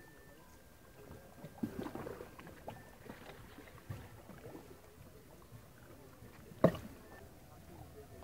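Small ripples lapping and splashing against the shoreline rocks, with scattered faint knocks and one sharp click a little under seven seconds in.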